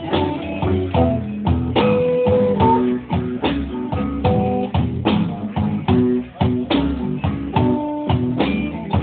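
Blues band's instrumental break: guitar playing a riff with bent notes over a steady drum-kit beat, with no singing.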